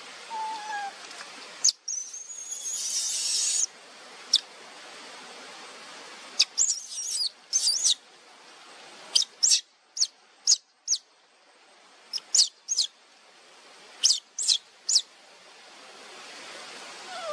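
A baby macaque giving short, high-pitched squeaks, most of them in quick clusters of two to four from about six seconds on. A brief hiss comes about two seconds in.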